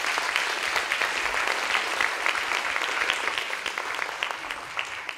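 Audience applauding: a dense patter of many hands clapping that begins to thin out and fade near the end.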